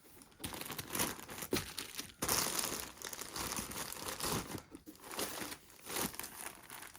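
Plastic packaging bag crinkling and tearing in irregular bursts as a clothing parcel is handled and opened.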